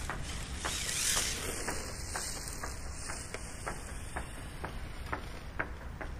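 HSP 94123 1/10 brushless RC drift car passing close by on asphalt: its motor and tyre hiss rises to a peak about a second in, then fades as the car drives away. Faint sharp ticks repeat about twice a second over a low steady wind rumble.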